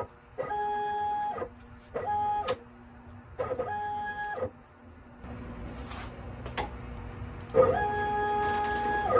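Stepper motors of a CNC router driving the gantry in four short jogs, each a steady whine that rises in pitch as it speeds up and drops as it stops. The last and longest jog comes near the end. A low rumble joins about five seconds in.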